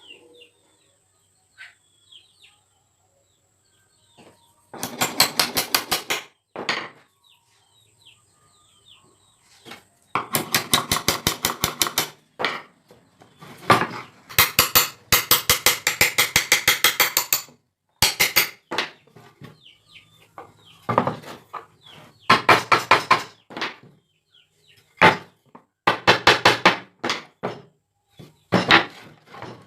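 Bursts of rapid, evenly spaced knocking from woodworking, about ten sharp strikes a second, each burst lasting one to four seconds, with pauses between them.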